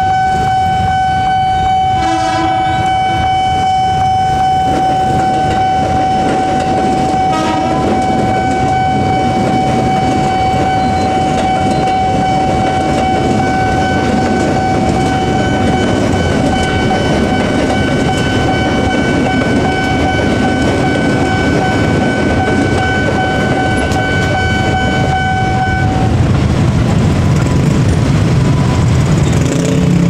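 Level-crossing warning siren sounding a loud, steady high tone. A train horn sounds twice, about two and seven seconds in, and then a KRL electric commuter train rumbles across, its wheels clacking over the rails. Near the end the siren cuts off and motorcycle engines rise as the barriers lift.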